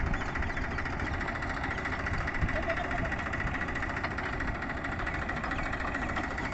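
Massey Ferguson 241 tractor's diesel engine running steadily, with faint voices in the background.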